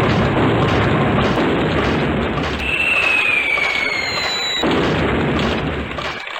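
Sound effects from a CR Moretsu Genshijin E pachinko machine during a reach: a loud, continuous explosion-like rumble. About two and a half seconds in, a falling whistle-like tone comes in and runs for about two seconds. The rumble drops away near the end.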